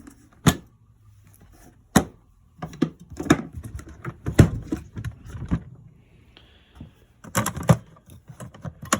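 Toolbox being opened and gone through: latches snapping, the lid knocking and metal hand tools clinking. The sharp clicks come at irregular intervals, some in quick clusters.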